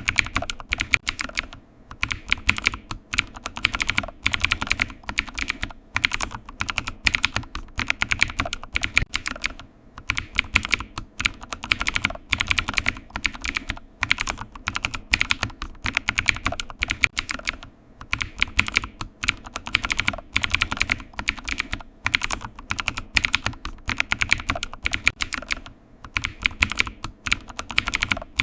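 Typing on a computer keyboard: rapid, irregular key clicks in continuous bursts with brief pauses.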